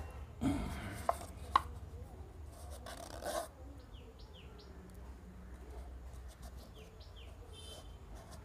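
Hands sowing tomato seeds into a pot of soil: soft rustling and handling of a small plastic cup, with two sharp clicks in the first two seconds and another rustle around three seconds in. Later, twice, a few short falling bird chirps, over a low steady hum.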